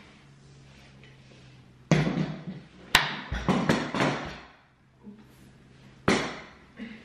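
Thumps and knocks from a green tufted upholstered chair's parts being handled and fitted together during assembly: a thump about two seconds in, a sharp click about three seconds in with a quick run of knocks after it, and another thump near the end.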